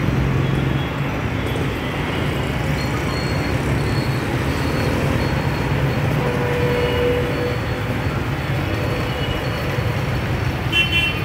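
Steady drone of road traffic and city background noise, with a constant low rumble and no single event standing out.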